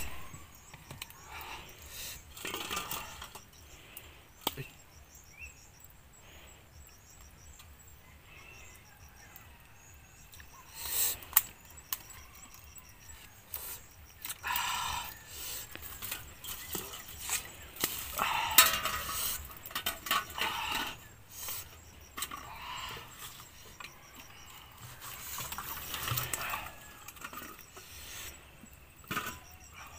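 Scattered light clinks and rustles of things being handled on the ground, with a few short vocal sounds.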